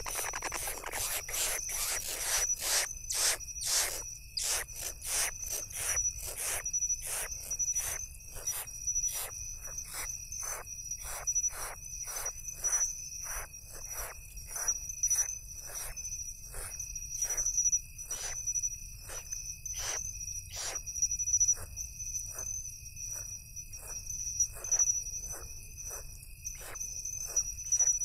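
Crickets trilling steadily in two high tones, with a regular sharp ticking a little under twice a second. A rustling hiss fills the first few seconds.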